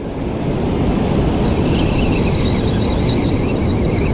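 Wind on the microphone over the surf, a steady rushing noise. A faint, wavering high tone joins it about a second and a half in.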